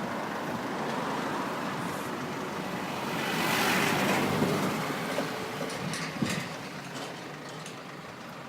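Road traffic: a vehicle passes, swelling to its loudest about three to four seconds in and then fading, followed by a few light clicks.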